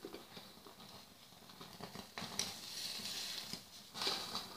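Masala-coated chicken sizzling and crackling on a wire grill rack over a gas flame, as oil seeps out of the meat, with a few light clicks of a fork on the rack. It is faint at first and grows louder about two seconds in.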